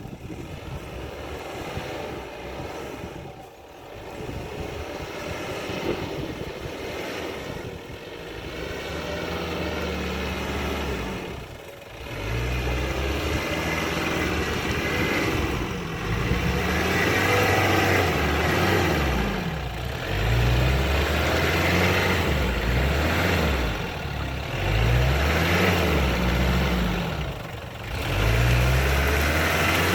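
Nissan Terrano WD21's engine driving off-road. For the first twelve seconds it is a rough, uneven mix of engine and noise; from about twelve seconds in the engine revs up and down again and again, its pitch rising and falling every couple of seconds.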